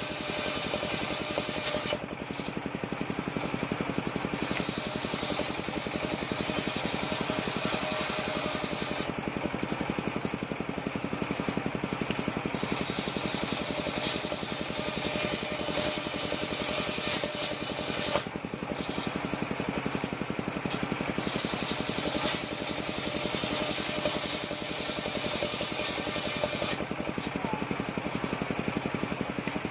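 Large circular saw bench ripping waru wood into roof battens: the saw runs steadily with a constant hum, and its hiss grows each time a plank is fed through the blade, about four cuts, easing between passes as the blade spins free.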